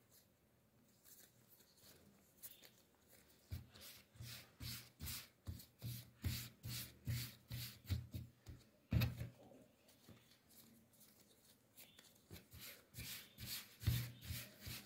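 Hands rounding soft bread dough into a ball on a floured counter: faint rhythmic rubbing and patting strokes, about two a second, with one louder thump about nine seconds in.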